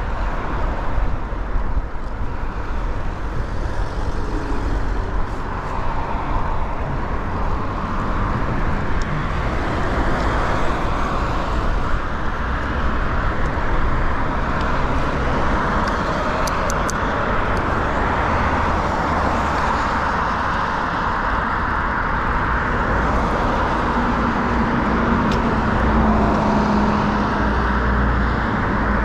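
Steady city road traffic: cars and other motor vehicles passing close by, a continuous rumble and tyre noise, with a low engine hum rising out of it near the end.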